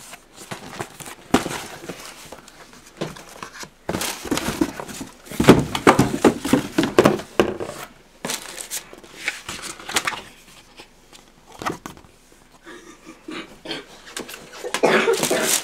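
A cardboard shoebox being handled and its lid opened, then a paper insert card and tissue paper slid and rustled by hand: irregular scraping and rustling, loudest around the middle.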